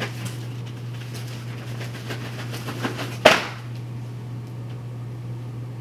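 Handling noise from the unboxing: a few light clicks, then one sharp knock about three seconds in, over a steady low electrical hum.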